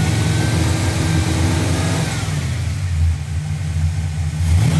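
A 306 cubic-inch small-block Ford V8 is held at a raised speed, just over 2000 RPM, then drops back toward idle about two seconds in and is revved up again near the end. The engine is being held above 2000 RPM so a timing light can check that a timing retard box pulls the ignition timing back.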